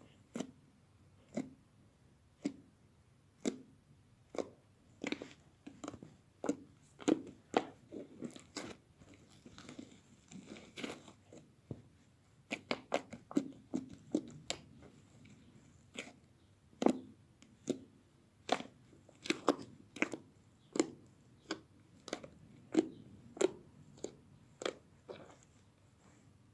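Slime being squeezed and pressed by hand, giving a string of sharp, crackly popping clicks at an irregular pace of about one or two a second.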